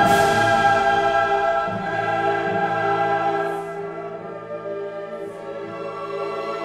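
Background music: choral singing over orchestra, in long held chords that soften about halfway through.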